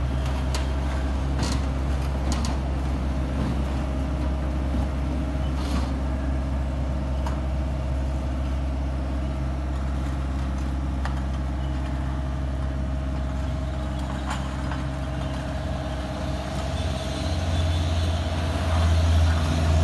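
LiuGong 906F mini excavator's diesel engine running steadily as it crawls on its tracks down a tow truck's ramp, with a few short metallic clanks scattered through. The engine gets louder near the end.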